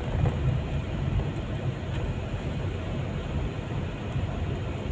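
Steady low rumble of a car driving, engine and tyres on the road, heard from inside the cabin.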